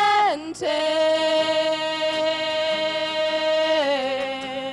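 A female voice singing one long held note with acoustic guitar accompaniment. It slides down into the note just after the start and steps down to a lower note near the end.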